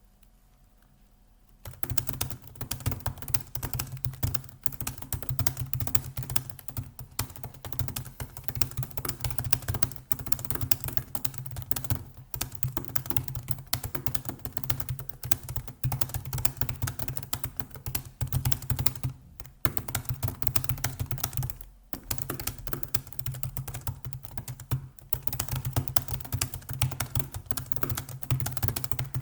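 Computer keyboard typed very fast, at about 110 words per minute, as a rapid, continuous stream of key clicks. It starts about two seconds in and breaks off briefly a few times.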